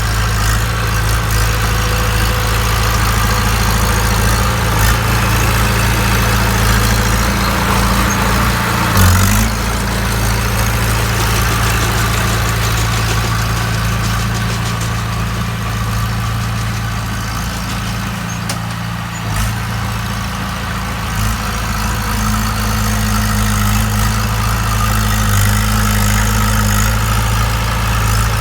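Bulldozer's diesel engine running steadily at idle, with one sharp knock about nine seconds in. A few seconds past the middle, the low rumble briefly drops away and then comes back.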